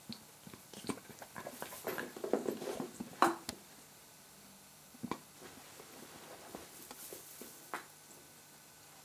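A kitten at play, knocking and rustling: a flurry of light taps and knocks with the loudest knock about three seconds in, then two single taps later on.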